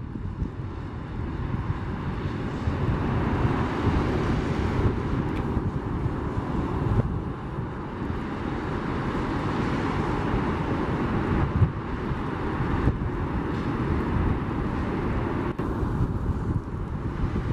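Boeing 737 jet engines at taxi power: a steady rushing roar that grows a little louder a few seconds in.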